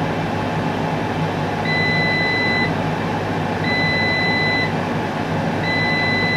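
Cosori Dual Zone air fryer sounding its end-of-cooking alert: three long, steady, high beeps about two seconds apart, the signal that the timers on both drawers have finished. Under the beeps its fans keep up a steady whir, still running after the cook ends.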